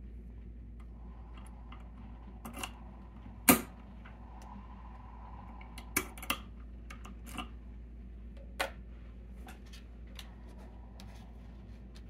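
Sharp metallic clicks and clacks from an ASSA Desmo padlock and its key being worked by hand: the key going in and turning, and the lock body being handled. The loudest click comes about three and a half seconds in, with a few more scattered after it, over a low steady hum.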